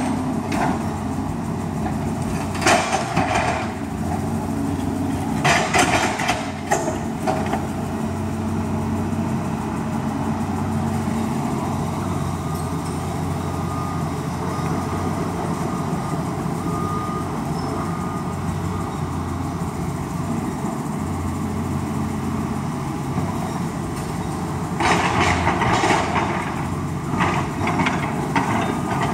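Tracked hydraulic excavator's diesel engine running steadily while it tears down a house, with clusters of crashing and cracking debris about three seconds in, again around six seconds, and near the end.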